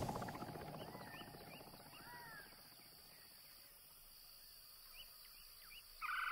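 Faint outdoor ambience with scattered short bird chirps and whistles. A low rumble fades out over the first two seconds, and near the end a louder bird call with a blocky, doubled tone begins.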